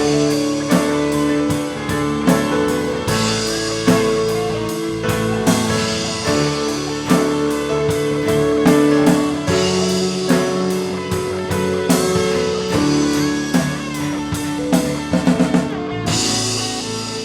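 Instrumental music with a steady beat and sustained chords.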